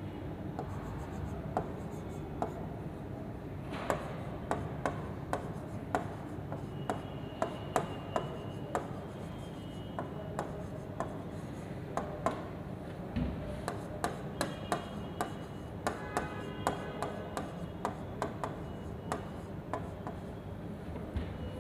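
Stylus writing on an interactive smart-board screen: a string of irregular sharp taps and clicks as the pen tip strikes and drags across the glass, over a steady background hum.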